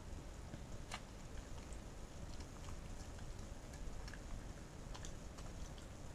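Faint, irregular clicks and ticks of a corgi nosing and licking at treat crumbs on the floor, over a low steady background rumble.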